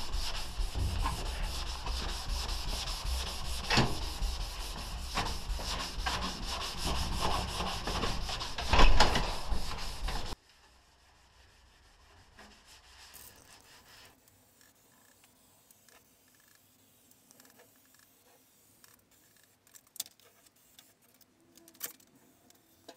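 Hand rubbing an abrasive pad back and forth over a ribbed steel car body panel, a steady scratchy scrubbing. It cuts off abruptly about ten seconds in, leaving near silence with a few faint clicks.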